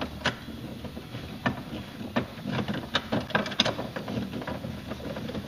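Irregular clicks and knocks of hand tools and metal hardware while a throttle pedal is fitted back onto its mount and its bolt is tightened.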